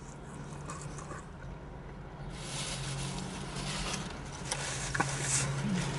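Road traffic: a steady low engine hum, with tyre and road noise swelling from about two seconds in as a vehicle draws nearer.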